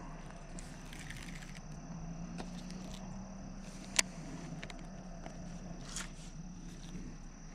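Baitcasting reel being handled between casts: one sharp click about four seconds in and a softer one near six seconds, with small ticks and rustles. A steady low hum and a faint steady high whine run underneath.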